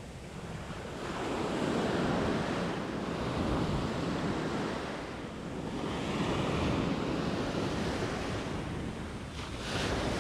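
Ocean surf washing in around the shallows, swelling and fading in waves, with a wave breaking close by near the end.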